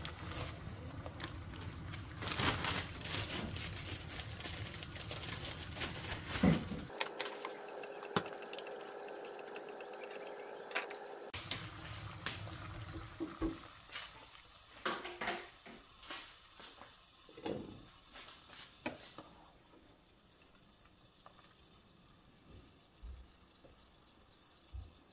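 A plastic bag of baby spinach crinkling for the first several seconds. Then a pot of water boils with blanching spinach in it, with scattered knocks and scrapes of a ladle against the pot through the middle.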